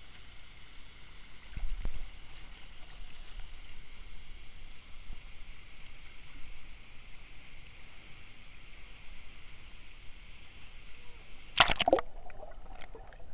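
Steady rush of a waterfall plunging into its pool, with the pool's water churning close to the microphone at water level. There is a low bump about two seconds in, and near the end loud splashes as the camera goes into the water.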